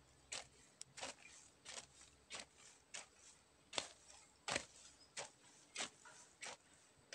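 A long-handled hoe chopping into soil: short, sharp strikes at an even pace, about three every two seconds.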